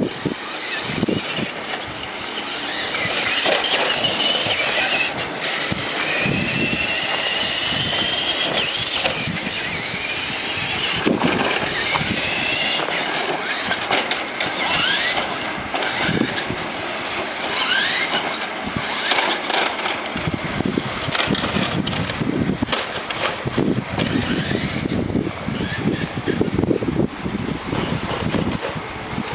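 Remote-control truck's motor and drivetrain whining, rising and falling in pitch with the throttle, with scattered clicks and knocks as the truck runs; the low, rough noise grows louder in the last third.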